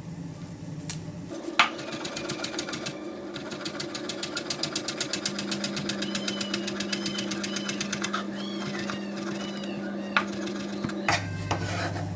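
Chef's knife chopping fresh parsley and coriander on a wooden cutting board, a fast even run of about six knocks a second for several seconds, then a few single knocks near the end.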